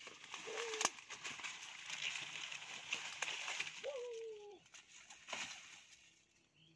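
Coffee bush leaves and branches rustling as a young macaque clambers down through them, with a sharp crack just under a second in. The monkey gives two short whimpering coo calls, one about half a second in and one around four seconds in that falls in pitch.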